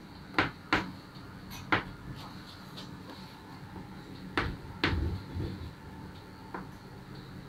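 Chalk tapping on a blackboard during writing: a handful of short, sharp taps at uneven intervals, the loudest two close together about four and a half seconds in.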